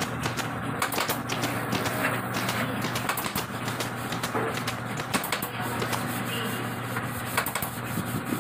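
Pneumatic staple gun firing staples through upholstery fabric into a wooden headboard panel: a series of sharp clacks at uneven spacing, over a steady low hum.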